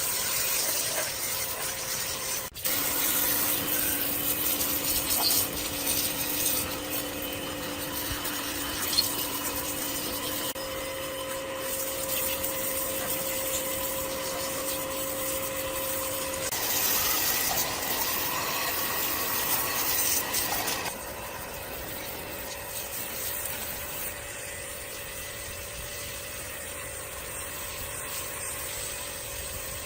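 Steady rubbing and scraping of a tool working a piece, like filing or sanding, quieter from about 21 s in.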